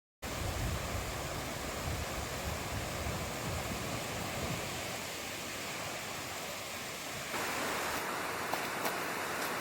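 Steady rushing of water, with no other distinct sounds; about seven seconds in it changes to a brighter, hissier rush.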